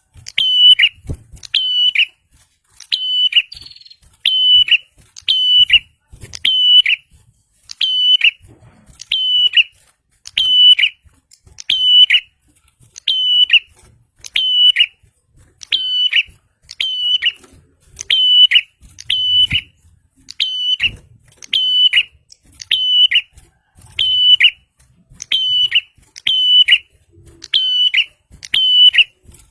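Prinia (prenjak) giving a loud, sharp, high chirp over and over, about one call a second, some in quick pairs.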